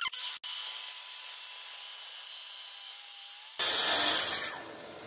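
Festool TS 55 corded plunge-cut track saw with a 48-tooth blade cutting through oak along its guide rail: a steady hiss of blade and motor, with a much louder burst of about a second near the end.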